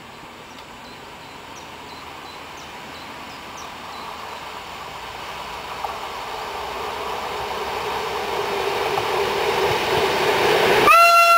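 A train approaching, its running noise growing steadily louder, then one short blast of the locomotive's horn near the end.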